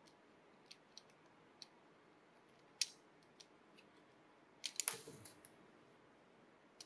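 Small sharp clicks and taps of a plastic 2 mm lead refill case and its graphite leads being handled as a lead is drawn out. There are a few faint ticks, a sharper click about three seconds in, and a quick cluster of clicks with a soft knock just before five seconds.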